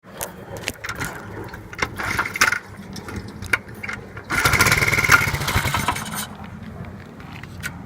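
Honda Z50 minibike's small single-cylinder four-stroke engine running, with scattered sharp ticks over the steady beat and a louder, rougher stretch of about two seconds midway. The bike has an exhaust leak that the owner is trying to locate.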